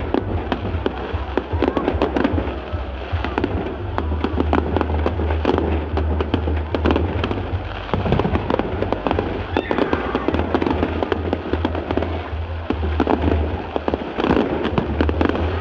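Fireworks display: aerial shells bursting overhead with many bangs and crackles in quick succession.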